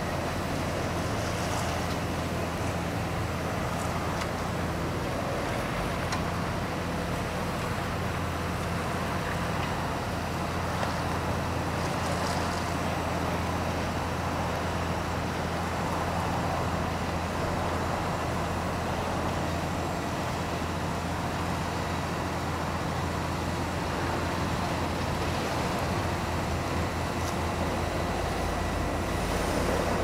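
Heavy diesel asphalt-paving machinery running steadily, a low drone under an even machine noise that grows a little heavier in the bass near the end.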